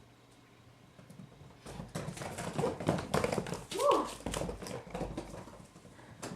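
Kittens' paws pattering and skittering quickly across the floor as they run and play, with a short pitched cry about four seconds in and a sharp knock near the end.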